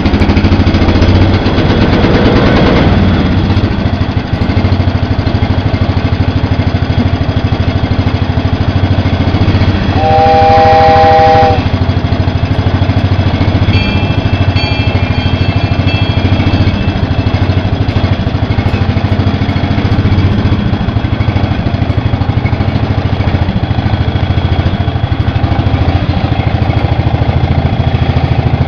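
Old Cub Cadet lawn tractor engine running steadily. About ten seconds in, a homemade copper-and-brass compressed-air train whistle sounds a three-note chord for about a second and a half. A few seconds later a small bell rings briefly.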